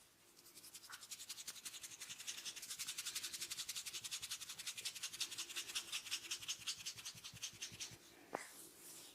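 Hands rubbing and scratching hair and scalp in a fast, even rhythm, about nine strokes a second. It swells and then fades near the end, and a single sharp click follows.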